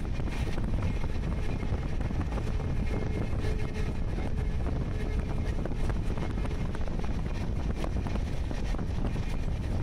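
Steady rumble of a moving train with wind buffeting the microphone.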